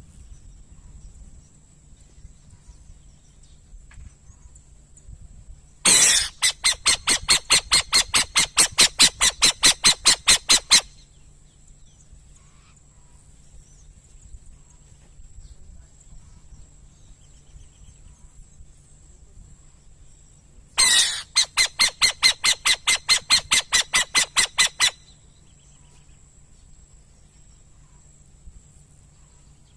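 Burrowing owl giving two bouts of rapid, harsh chattering notes, about five a second, each lasting four to five seconds and opening with a longer note.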